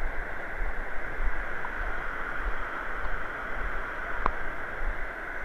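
River water rushing steadily over shallow rapids, with wind buffeting the microphone in a low, uneven rumble. A single short click about four seconds in.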